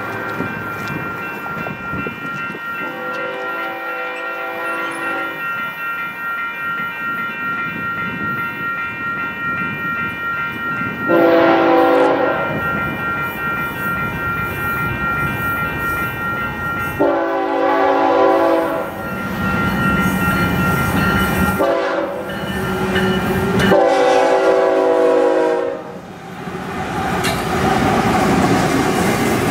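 Union Pacific GE diesel locomotive approaching and sounding its air horn in five blasts. The last four go long, long, short, long, the grade-crossing signal. Near the end the double-stack container cars rumble past, wheels clicking over the rail joints.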